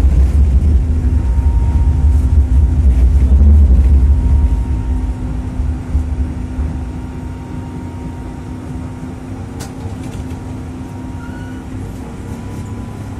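Tatra T3SUCS tram heard from inside the passenger car as it runs and then slows: a loud low rumble for the first few seconds fades away, leaving a steady quieter hum with a faint whine. A single sharp click comes near the end.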